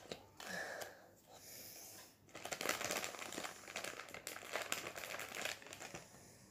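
Crinkling and rustling of a collectible pack's plastic wrapper as it is torn open and handled. There is a short rustle near the start, and dense crackling runs from about two seconds in until shortly before the end.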